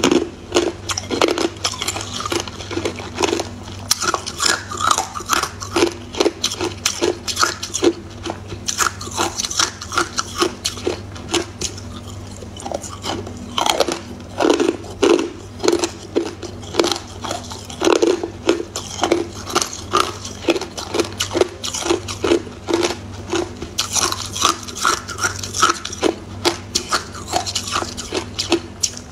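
Matcha-powdered ice cubes being bitten and chewed, a quick run of sharp crunches and cracks with a short lull about halfway through.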